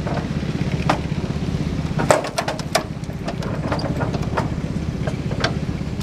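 An engine running steadily at idle with a fast, even beat, and sharp metallic clicks and clanks now and then over it.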